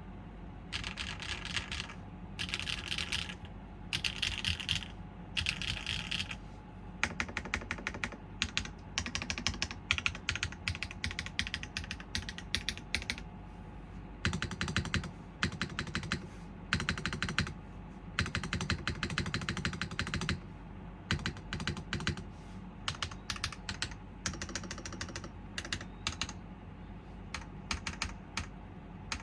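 Typing on a custom mechanical keyboard, a GSK 910 PC with factory-lubed HMX Yogurt S switches in a top-mounted aluminum plate, GMK keycaps and no dampening foam. It begins with four short clusters of fast keystrokes, then settles into long runs of rapid typing with brief pauses.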